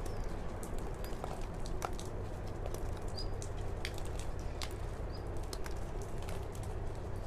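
Steady low background rumble with many faint scattered ticks and a few short, faint bird chirps.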